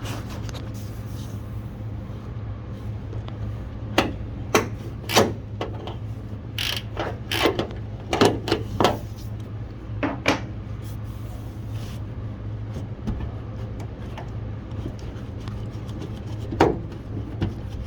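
Irregular clacks and knocks from a small ratcheting wrench working the screws on a van's sliding-door handle and knocking against the door's metal and plastic, over a steady low hum. The knocks are bunched in the middle and one comes near the end.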